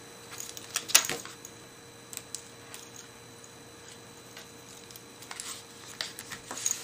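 Scattered light clicks and paper rustles from a folded cardstock card being handled and flexed. One sharper tap comes about a second in, and a small cluster of taps comes near the end.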